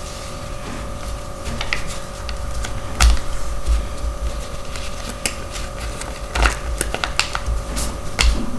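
A sheet of paper being folded and creased by hand, with irregular crackling clicks and a few soft thumps against a table surface. A steady background hum runs underneath.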